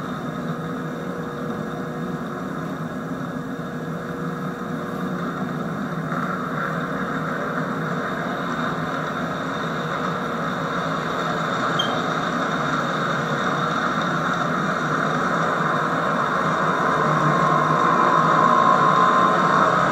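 HO-scale model freight train rolling steadily past on the track. The sound grows louder toward the end as the diesel locomotive goes by.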